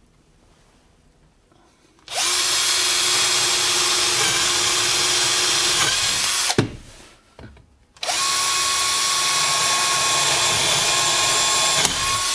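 Handheld drill boring up through a plywood board from underneath, in two steady runs of about four seconds each with a short pause between, the first starting about two seconds in.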